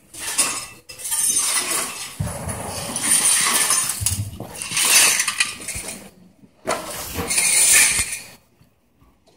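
Handling noise in several loud bursts: rustling and rubbing on the microphone of a handheld phone camera being swung about, with some clinks and light knocks. It dies away shortly before the end.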